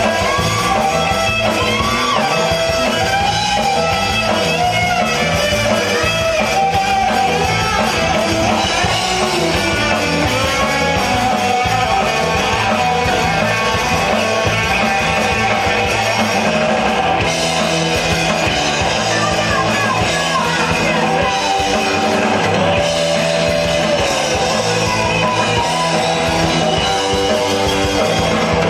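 A live rock band playing loud: distorted electric guitar and a drum kit, with gliding melodic lines over a steady beat.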